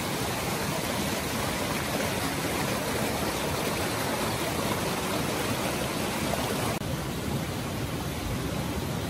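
Shallow rocky stream rushing over boulders and small falls: a steady rush of water. About seven seconds in it changes abruptly to a slightly duller, softer rush.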